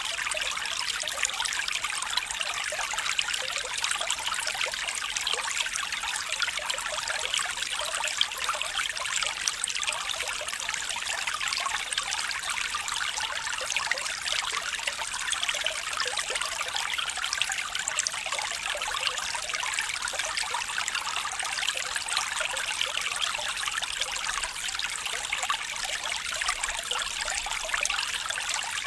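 Water flowing and trickling steadily over stones, a small stream with a dense, even babble.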